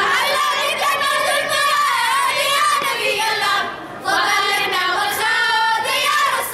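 A choir of girls singing a nasheed together, with a short break for breath about four seconds in.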